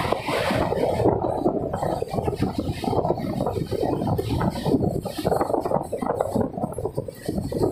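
Wind rushing and buffeting the microphone at the open door of a moving passenger train, a dense, gusty rumble that rises and falls constantly.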